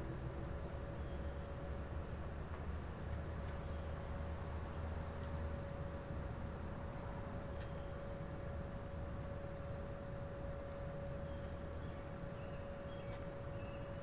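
Steady chorus of insects chirping, with a faint distant outdoor warning siren holding one steady tone underneath that grows a little stronger a few seconds in, over a low rumble.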